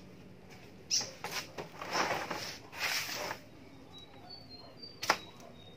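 Plastic tube eel traps being handled and emptied into a sack: scraping and rustling of the pipes and the eels sliding out, with a few clicks and one sharp knock just after five seconds.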